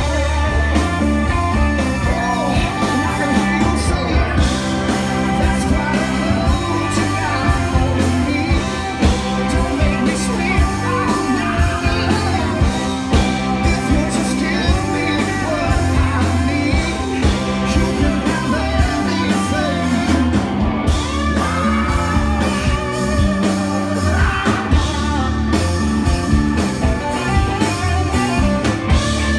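Live blues-rock band playing: two electric guitars, bass guitar and drum kit, amplified through the stage PA.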